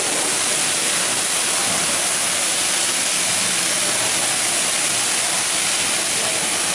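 Steady loud hissing and sizzling from a hot steel teppanyaki grill plate as it flares up in tall flames, burning the plate clean to sterilise it.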